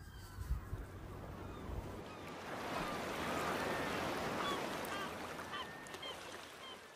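Wind rumbling on the microphone, then a steady outdoor rushing noise with short, repeated bird calls over it.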